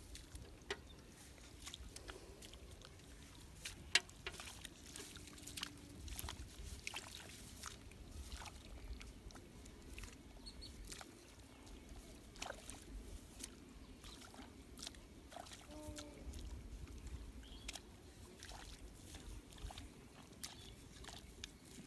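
Faint splashing and squelching of hands groping through a shallow, muddy rice-field drain, with scattered small clicks and taps over a low rumble.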